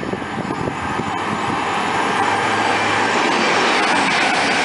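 Virgin Trains Voyager diesel multiple unit running through the station at speed: a rush of underfloor diesel engine and wheel noise with a low steady hum, growing louder over the first three seconds and then holding steady.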